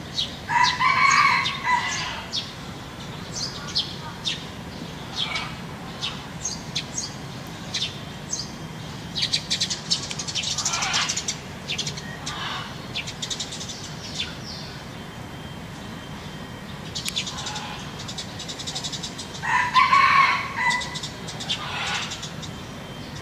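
Peafowl calling loudly twice, once near the start and once near the end, with small birds chirping in short high notes in between.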